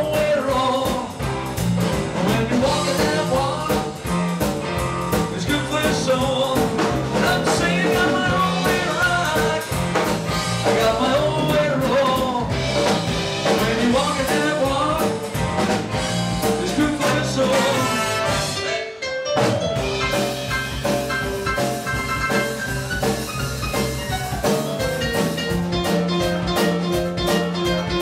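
Live rock band with a horn section, keyboards, electric guitar and drum kit playing, with a male lead vocal. The band stops for an instant about two-thirds of the way through, then comes straight back in.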